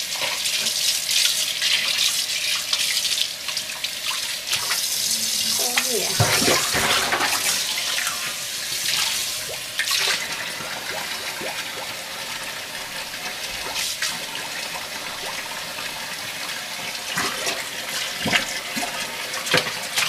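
Kitchen tap running into a sink, with a few light knocks scattered through it.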